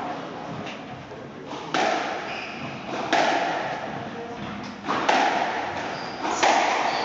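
Squash rally: a hard rubber ball struck by rackets and slapping the court walls, four sharp hits about one and a half to two seconds apart, each ringing on in the court.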